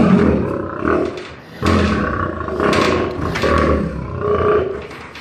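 Male lion vocalizing: a run of about four rough calls with short breaks between them.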